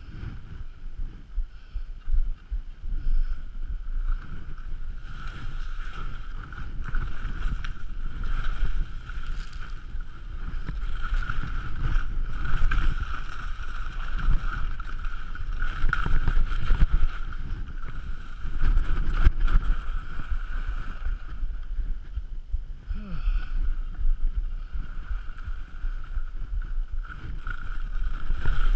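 Skis sliding and scraping over snow, with wind rushing over the helmet camera's microphone. It grows louder about five seconds in, once the run gets going, and stays a steady rush from there.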